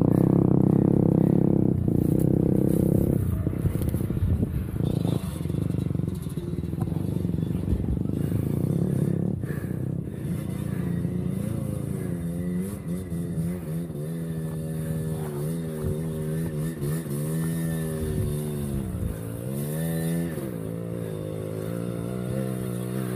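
Trail motorcycle engine running, loud and rough at first. From about halfway through, its pitch rises and falls repeatedly as the rider works the throttle up and down.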